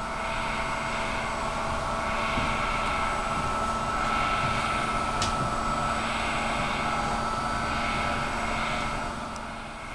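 Steady mechanical running noise from lab machinery: a constant low hum and a thin high tone over a hiss that swells slightly about every two seconds.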